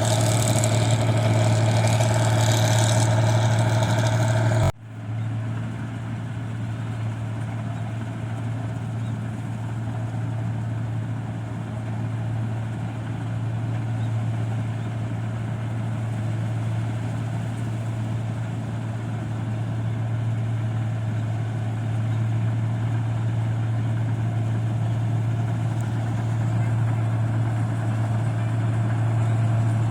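Rice combine harvester engine running steadily with a strong low hum. About five seconds in the sound breaks off for an instant and comes straight back, a little quieter and duller.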